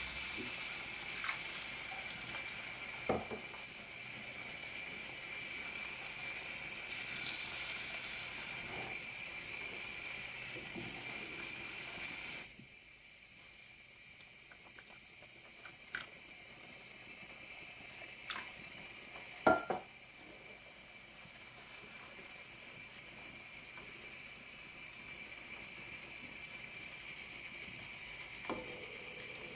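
Boiling water poured into a frying pan of hot sautéed grated beets, giving a steady hiss of pouring and sizzling that drops to a quieter hiss about twelve seconds in. A few sharp knocks sound through it, the loudest about two-thirds of the way through.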